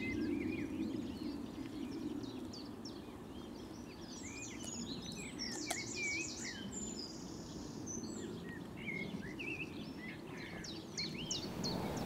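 Small birds chirping and singing all through, short twittering calls with one rapid trill in the middle, over a low distant rumble from a passing aeroplane that eases off over the first few seconds.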